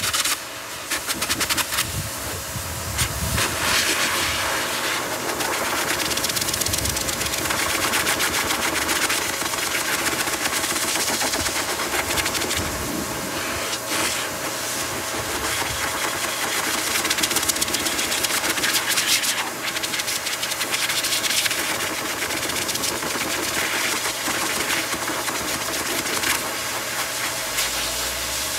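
Blow dryer running steadily on its high setting, blowing air onto a Pomeranian's wet coat to dry it, the rush of air rising and falling a little as it is moved.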